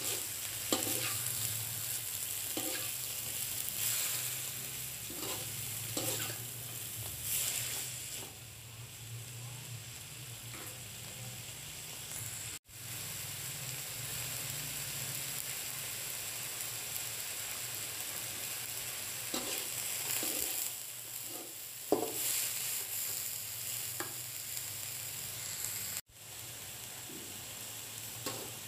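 Bean sprouts sizzling in a hot wok while a spatula stirs and tosses them, with irregular scrapes of the spatula against the pan over a steady frying hiss.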